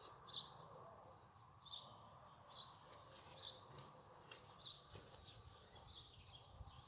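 Faint bird chirps: short calls repeated about once a second.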